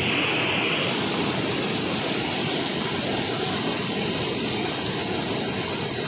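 Waterfall: river water rushing steadily over a rocky cascade.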